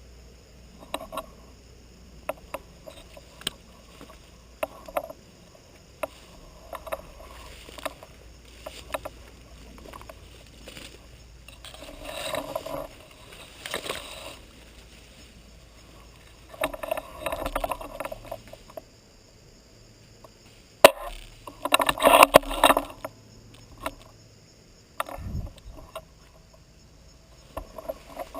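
Bursts of rustling and scraping movement, each a second or two long, with scattered sharp clicks and one single sharp crack about three quarters of the way through.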